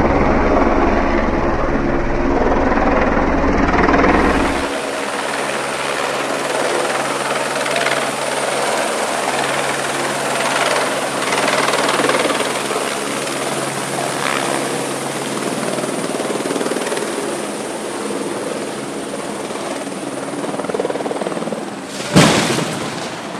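Helicopter hovering low, with a heavy rotor thump in the first few seconds, then a steady dense rush of rotor downwash and blowing dust with a high turbine whine over it. Near the end there is a sudden loud rush.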